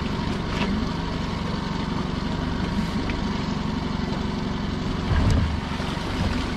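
Small boat's outboard motor idling steadily, with a dull low knock about five seconds in.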